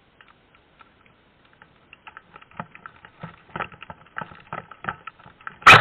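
Footsteps crunching and rustling through dry fallen leaves and twigs, a few light crackles at first, then growing denser and louder as the walker moves off. Right at the end a loud music track with a steady beat cuts in.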